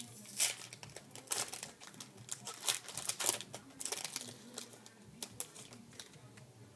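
Trading card packs and cards being handled: a busy run of irregular crinkles and clicks from foil wrappers and cards, thinning out toward the end.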